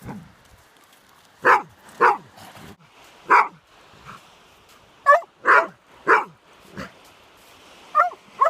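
A dog barking repeatedly: about nine short, sharp barks in irregular groups, two close together near the end.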